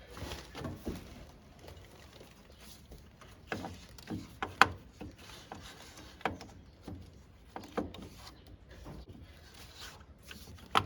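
Scattered metal clinks and knocks as a tractor starter motor is fitted into place, the sharpest knock about four and a half seconds in.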